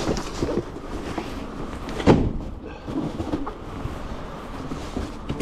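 Cardboard cases of food being handled and stacked, giving a series of knocks and thumps, the heaviest about two seconds in.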